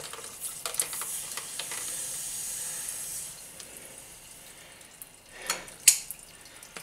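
Water hissing as it sprays under mains pressure from a cracked threaded fitting on a wall supply tap, the crack widening as the fitting is tightened; the owner suspects a split metal T-joint. The hiss fades after about three seconds, followed by a couple of sharp metal clicks near the end.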